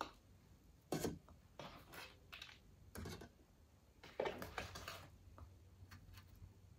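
Fried chicken pieces handled in a cardboard KFC bucket and set on a plate: a handful of short, faint scrapes and paper rustles about a second apart, with a longer stretch of rustling about four seconds in.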